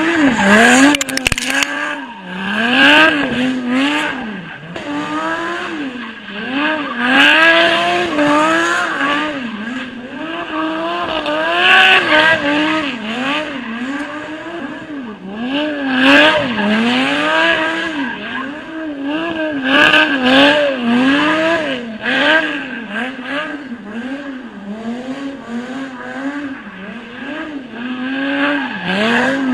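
Lamborghini Gallardo's V10 revving up and down over and over as the car drifts in circles on loose gravel, with tyres scrabbling and spraying gravel. It gets louder about every four seconds as the car swings past.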